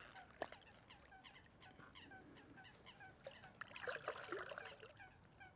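Geese honking faintly: a quick run of short calls, several a second, with a single sharp knock about half a second in.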